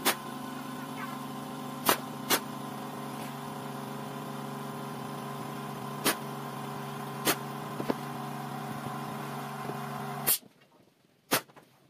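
An air compressor runs with a steady hum while a pneumatic nail gun fires sharp single shots into plywood, about eight in all, spaced irregularly. The compressor hum stops about ten seconds in, and one more shot follows.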